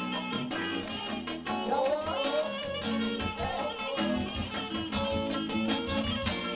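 Music with plucked string instruments and a wavering melody line.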